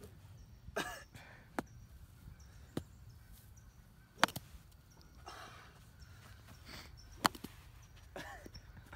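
Golf club swung into bunker sand, with two sharp strikes about three seconds apart; the second is the louder.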